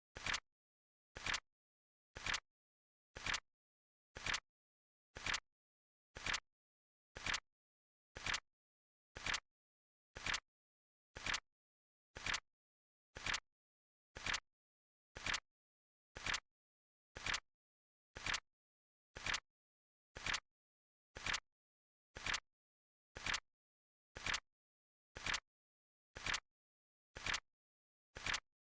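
Flip clock timer sound effect: a short, sharp flip click about once a second, evenly spaced, with silence between.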